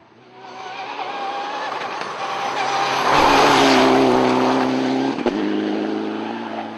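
Rally car engine at full throttle, coming closer and passing on a tarmac stage, loudest about three to four seconds in. The note breaks briefly with a crack about five seconds in, then runs on and fades as the car moves away.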